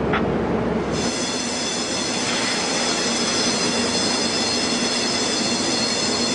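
Steady high-pitched metal-on-metal squeal, several held tones at once, from container-handling machinery at a container port. It starts about a second in, taking over from a low rumble.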